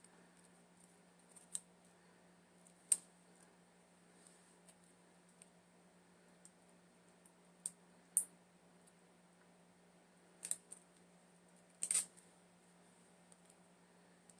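A handful of sharp, irregularly spaced clicks and snaps, some in quick pairs, from a Dymo handheld label maker and small packaging being handled while labelling, over a faint steady hum.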